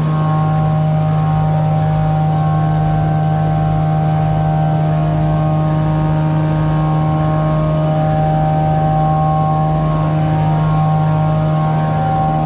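Laminated V-fold paper towel machine running: a steady mechanical hum with a constant low drone and higher whining tones that fade in and out.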